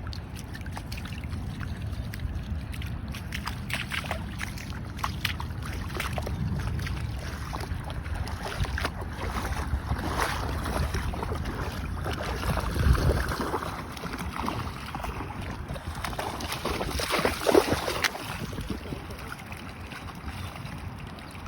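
Wind buffeting the microphone over water sloshing and splashing in the shallows, with louder splashes about 13 and 17 seconds in.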